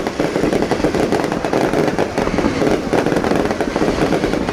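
Fireworks going off in a dense, continuous crackle.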